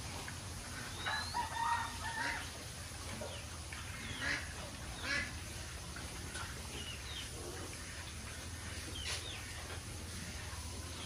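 A pen of pigs feeding at a concrete trough, with a few short, high animal calls over a steady low hum: a cluster of calls about a second in, two more around four and five seconds, and one about nine seconds in.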